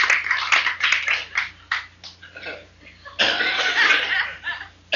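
Live audience laughing and clapping after a punchline, the clapping thinning out over the first couple of seconds, then a second swell of laughter and applause about three seconds in. Heard through the hiss and low hum of an old 8-track tape recording.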